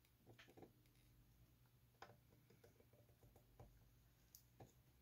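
Near silence, with a few faint, scattered clicks from a resistor's wire leads and small parts being handled on a circuit board.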